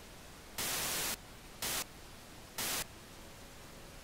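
Old television's static hiss: a faint steady hiss broken by three louder bursts of static, the first about half a second in and the longest, two shorter ones near the end.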